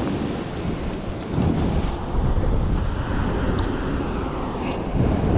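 Ocean surf washing against the shoreline rocks, swelling louder a couple of times, with wind buffeting the microphone.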